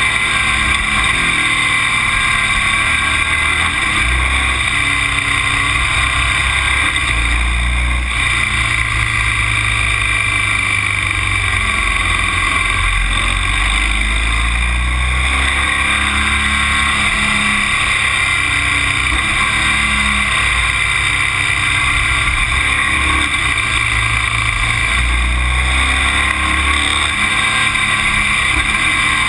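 Vehicle engine running under steady wind and road noise, the engine note rising and falling every few seconds.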